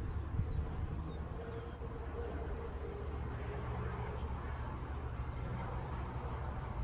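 Small birds outdoors giving short, very high chirps about twice a second over a steady low rumble.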